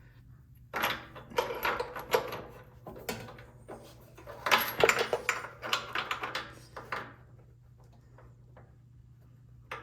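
Metal hand tools clattering and clicking as they are handled, in two bursts of quick knocks a few seconds long, with one more click near the end.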